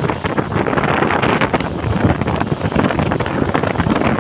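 Wind buffeting the microphone on a speedboat running at speed, over the rush of water from its wake.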